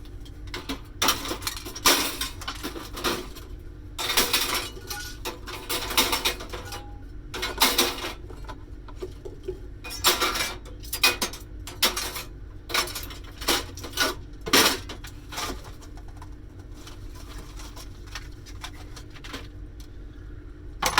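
Metal and plastic parts of a cash register clattering and clinking as it is taken apart by hand, in irregular knocks that thin out for the last few seconds. A steady low hum runs underneath.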